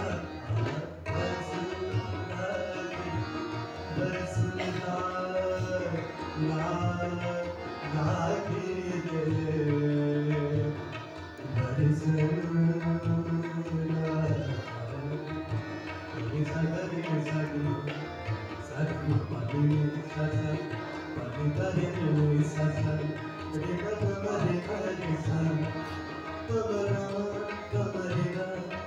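A male voice singing an Indian vocal piece with gliding, ornamented melodic lines. A harmonium accompanies him and a tabla plays a steady rhythm.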